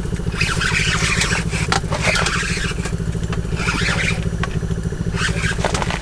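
A small engine idling steadily with a fast, even low pulse. Scraping and rustling come and go over it in several short patches.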